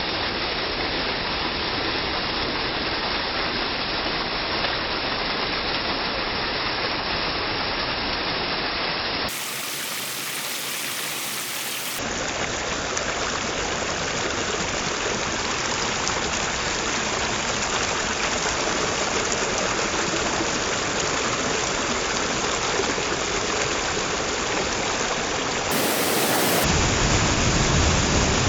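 Small waterfall's water rushing and splashing steadily, with no breaks; it grows louder and fuller in the last couple of seconds.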